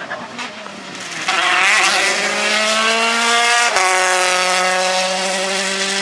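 Rally car engine pulling hard, loud from about a second in with revs climbing. About four seconds in, a quick upshift drops the pitch with a click, and the engine then holds high revs.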